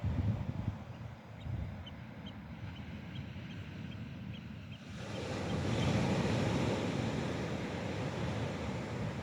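Wind buffeting the microphone over the sound of surf, swelling into a louder rush about five seconds in. Faint high chirps tick about three times a second in the first half.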